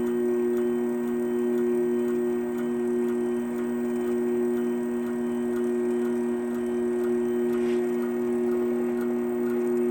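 Wire-spooling machine running steadily as it winds welding wire onto a spool: a steady motor hum with light ticking over it.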